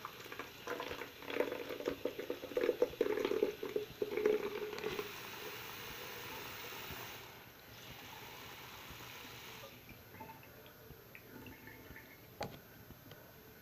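Bathroom faucet running water into an empty soap pump bottle to fill it: splashing and gurgling for the first few seconds, then a steady stream that stops about ten seconds in. One sharp click near the end.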